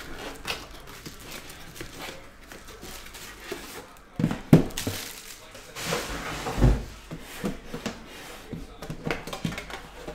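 Trading-card packaging being handled on a table: plastic shrink wrap crinkling, and a card box and metal tin knocking and clattering. There are a few louder knocks about halfway through, then a low thump.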